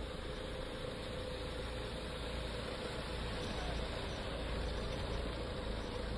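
Tata Safari SUV's engine running as the vehicle moves slowly at walking pace, a steady low rumble with a faint steady hum.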